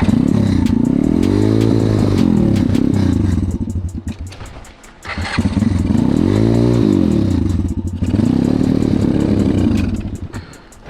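A 140cc pit bike's single-cylinder engine revving again and again, its pitch swinging up and down. It runs in three spells, with short dips in engine noise about four and a half and eight seconds in, and falls away near the end.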